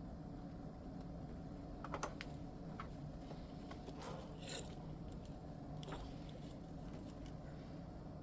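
Scattered light clicks and taps of small tools and parts being handled, with a short scraping sound about four seconds in, during power filter capacitor replacement work on a vintage amplifier.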